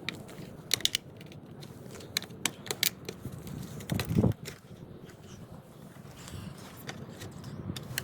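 Scattered sharp plastic clicks and taps as the black plastic bottom cover of a 4Runner side mirror is pressed and snapped onto its clips, with a duller knock about four seconds in.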